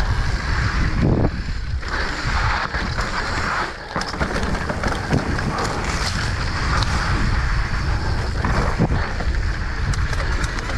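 Mountain bike descending a dirt singletrack: wind buffeting the microphone over the rumble of knobby tyres on dirt, with scattered knocks and rattles from the bike over bumps.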